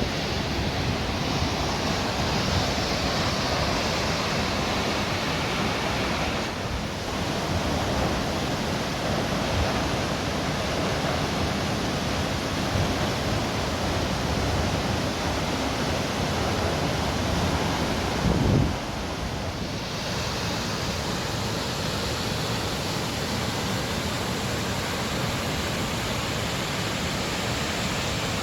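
The Reichenbach Falls, a waterfall some 300 metres high, giving a loud, steady rush of falling water. The rush dips briefly twice, about a quarter of the way in and again about two-thirds in.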